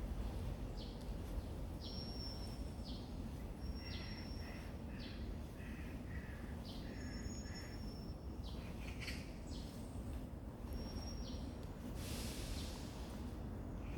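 Wild birds calling in woodland: repeated short high calls that drop quickly in pitch, with a run of lower chirps about four to seven seconds in. A steady low rumble of background noise lies under them, and a brief rush of noise comes about twelve seconds in.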